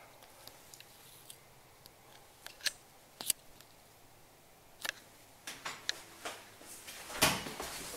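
Scattered short clicks and light taps in a small quiet room, a few at first and then a quick cluster, followed by a louder brushing scrape near the end.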